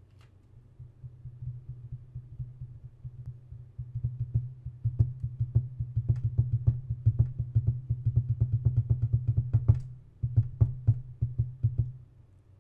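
Air ratchet running in long bursts of rapid pulses over a steady low hum as it drives a hex-head dashboard screw, with a short stop about ten seconds in. The screw is slow to catch because the clip nut it threads into has shifted.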